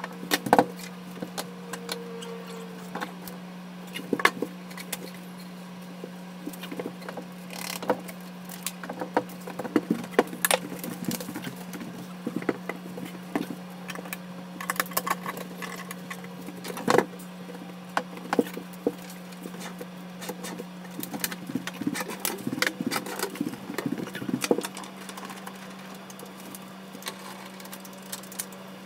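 Scattered knocks, taps and clicks of wooden kitchen base cabinets being set by hand, with a level laid on the tops and clamps fitted to the face frames, over a steady low hum.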